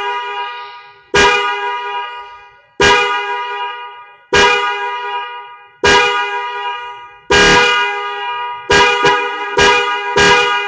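Electric car horns sounding a two-note chord, honked in short blasts about every one and a half seconds, each blast fading out, with a quicker run of three near the end.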